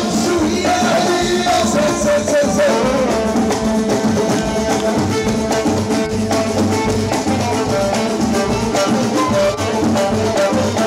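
Lively party music with a singer over a steady beat.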